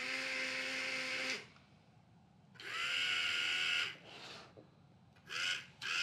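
Small yellow plastic DC gear motors of a hobby robot car spinning its wheels in the air under radio remote control: a whine that climbs in pitch as the motors spin up. One run of about a second and a half and another of just over a second, then two short bursts near the end.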